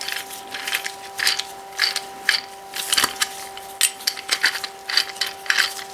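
Three-jaw lathe chuck being worked by hand, its freshly cleaned, still ungreased jaws and scroll giving irregular light metallic clicks and scrapes, a few each second.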